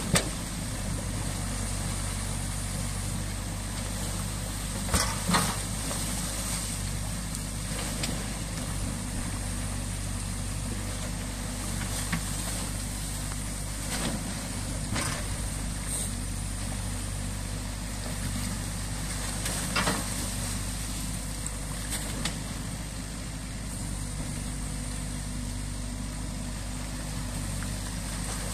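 New Holland Kobelco E 50.2 C mini excavator's diesel engine running steadily, over the rush of stream water pouring through the breached beaver dam. Scattered sharp knocks come as the bucket works through sticks and debris in the water.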